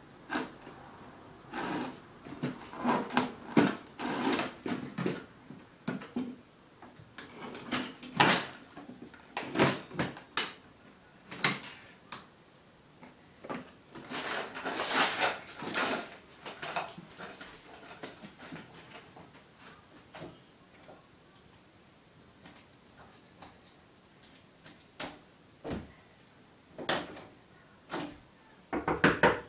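A plastic toolbox being handled: the lid and latches click and clatter, with a run of sharp knocks and rattles in bursts, then a few separate clicks near the end.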